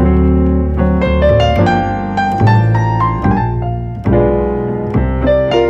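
Piano music: a run of single notes over a sustained bass line.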